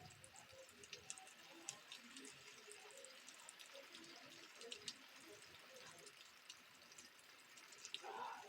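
Faint rain: scattered raindrop drips and ticks over a soft hiss, with one brief louder sound near the end.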